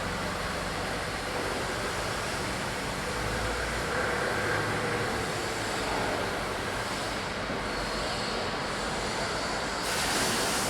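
Steady rushing background noise with a faint low hum underneath, no distinct events.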